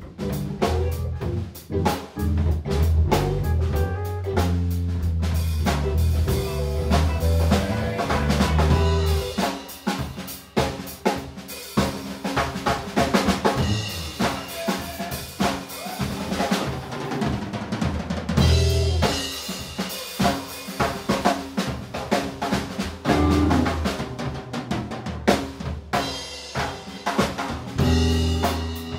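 A live rock band playing an instrumental: a drum kit with snare and bass drum hits throughout, plus electric bass and two electric guitars.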